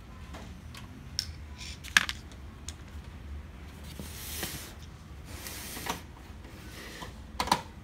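Sharp plastic clicks and taps as a screwdriver and a laser printer's plastic housing are handled. The loudest click comes about two seconds in and a double click near the end. In between come two short scraping slides as the printer is turned on the sheet beneath it.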